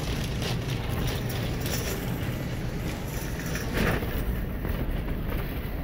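Shopping cart rolling along a hard store floor, its wheels and wire basket rattling steadily, with a brief louder knock a little under four seconds in.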